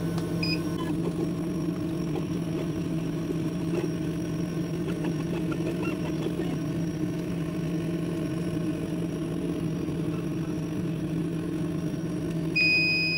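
Laser cutter running a cut in 2 mm acrylic: a steady hum from its fan and moving head. A short beep sounds about half a second in, and a longer beep comes near the end.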